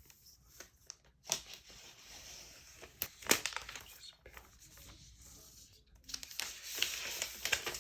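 Packaging being handled: crinkling and rustling of wrapping, with a few sharp knocks and a longer rustle near the end.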